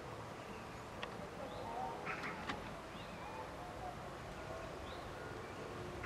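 Faint birds calling in short chirps, with a couple of sharp clicks about a second and two and a half seconds in, over quiet outdoor background.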